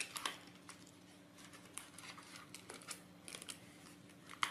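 Small cardboard box being opened by hand: scattered light scrapes, rustles and clicks of the flaps and packaging, with a faint steady hum underneath.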